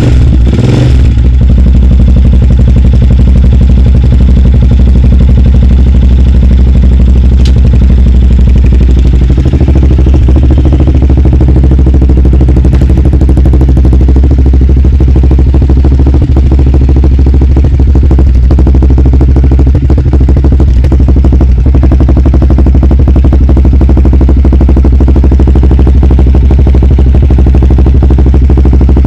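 Honda 400EX quad's single-cylinder four-stroke engine running at a steady idle through an HMF aftermarket muffler, loud and even throughout.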